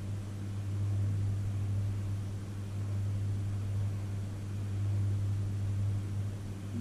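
Panasonic inverter microwave oven running: a steady low hum.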